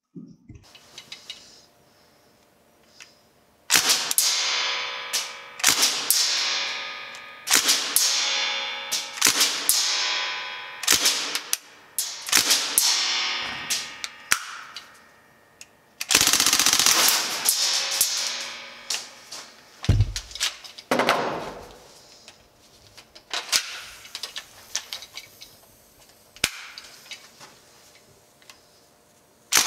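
Northeast Sten MkV open-bolt gas blowback airsoft submachine gun firing a series of short bursts, each trailing off with a ringing tail, with one longer burst of about two seconds past the middle.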